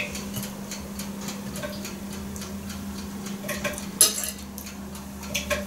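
A knife tapping and clinking lightly against a plate while cutting a cupcake, a few scattered taps with a small cluster about four seconds in, over a steady low hum.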